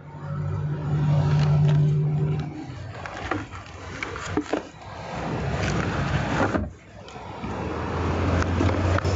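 Items being handled and rummaged through in a car trunk: plastic containers knocking, clatter and rustling. Under it a low engine hum is heard at first, fades after about two and a half seconds and comes back near the end.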